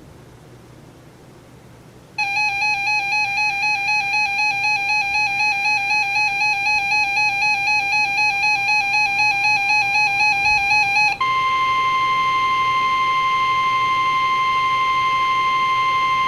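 A weather radio's alert alarm, starting about two seconds in after faint static hiss: a pulsing electronic beep at about three pulses a second for about nine seconds, then a switch to the steady, high NOAA Weather Radio warning alarm tone. The tone announces a severe thunderstorm warning about to be broadcast.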